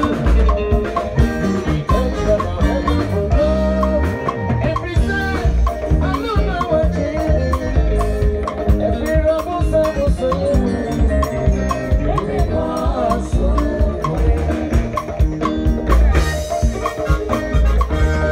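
Live band playing upbeat gospel music, with a heavy bass line and a steady percussion beat under melodic lines.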